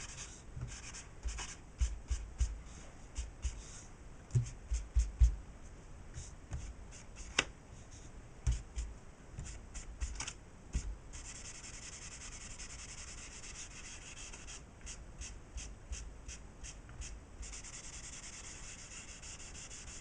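Rolled tissue rubbing charcoal onto drawing paper in runs of quick short strokes, with a few soft bumps of the hand against the paper.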